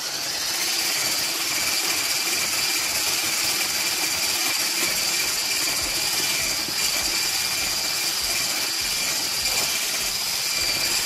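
Braun hand blender with its whisk attachment running steadily, beating a whipped-cream mix: an even whir with a steady high motor whine. It switches on at full speed right at the start.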